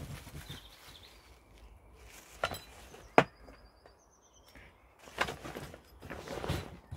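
Scattered footsteps and knocks, with a couple of short trills of small-bird chirping about halfway through.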